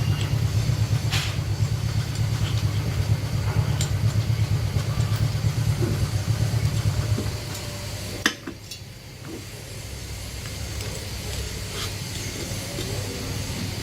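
A motor running with a steady low throb that drops quieter after a sharp knock about eight seconds in, with scattered light metallic clinks.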